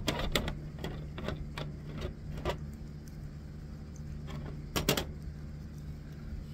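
Plastic wrestling action figures clicking and knocking against each other and the toy ring as they are handled: a run of light taps in the first couple of seconds and a louder double knock about five seconds in. A steady low hum from a room fan underneath.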